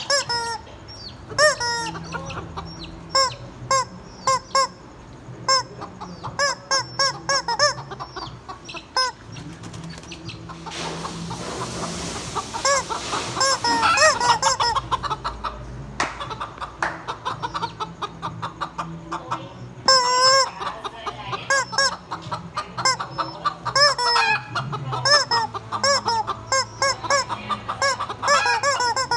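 Real hens clucking with many short, repeated calls, mixed with the squawks of a squeezed rubber chicken toy. A rushing noise comes in about ten seconds in and lasts a few seconds.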